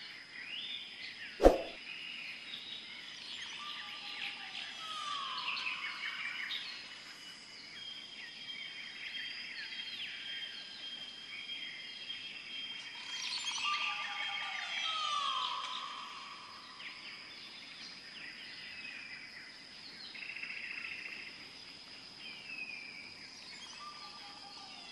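Many birds chirping and whistling, with falling calls, and the same run of calls comes round about every ten seconds. A single sharp click about a second and a half in is the loudest sound.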